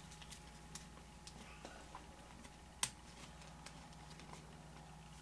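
Faint, scattered clicks and taps of Fleer Ultra basketball trading cards being handled and slid apart between the fingers, with one sharper click about three seconds in.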